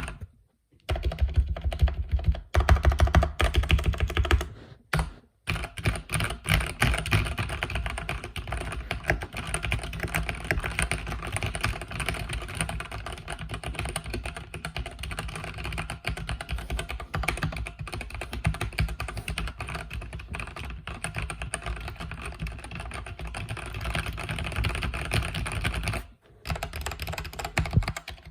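Fast continuous typing on a mechanical keyboard with linear red switches, a dense run of key clicks broken by short pauses about half a second in, around five seconds in and near the end.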